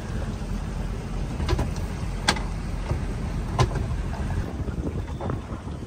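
Low steady rumble of a boat at sea, with wind on the microphone, broken by a few sharp knocks; the loudest comes a little over two seconds in.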